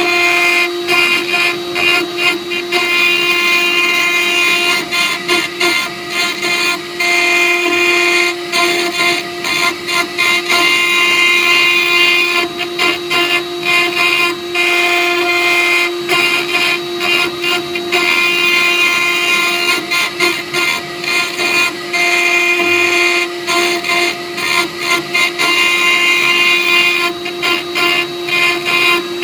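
CNC router spindle engraving glass: a steady high whine with a scratchy grinding noise from the bit cutting the glass, broken by many brief dips in level.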